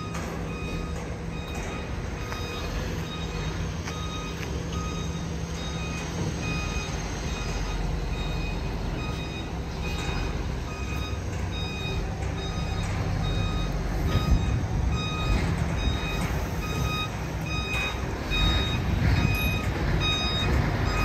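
Reversing alarm beeping steadily at a regular pace while a heavy truck's diesel engine runs underneath, moving the trailer-mounted water well drilling rig; the engine rumble grows louder about halfway through.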